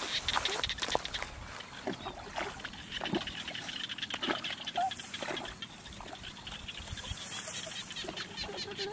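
Water splashing and dripping in short irregular strokes as hands work a bamboo fish trap and wicker basket in shallow water. A steady high hum and a few brief animal calls sit behind it.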